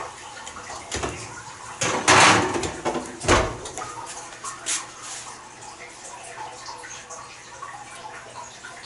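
Baking tray pushed into a kitchen oven: a metal scrape about two seconds in, then the oven door shut with a thump a second later, followed by a few light clicks.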